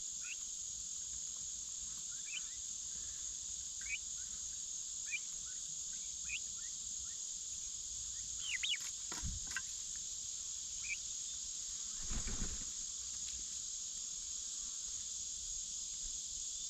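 Steady high-pitched chorus of insects such as crickets, with a few faint short chirps and a soft low rustle about three-quarters of the way through.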